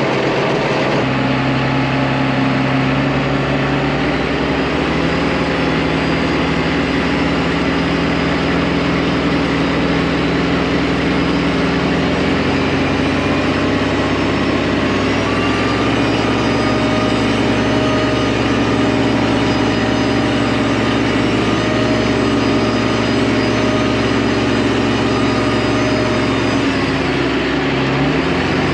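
Large tractor diesel engines running steadily under load as a John Deere 8110 tows a Case IH Quadtrac, stuck after its tracks spun on ice, with a recovery strap. The engine pitch steps up about a second in and shifts a few more times.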